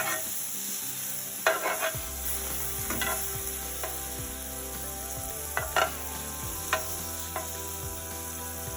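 Butter sizzling in a frying pan over low heat, a steady hiss. There are a few sharp clicks and taps against the pan, the loudest about one and a half and six seconds in.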